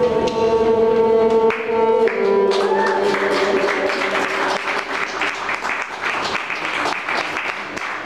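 A violin plays its last few held notes, stepping in pitch twice. About two and a half seconds in, audience clapping begins, and it goes on under the fading note.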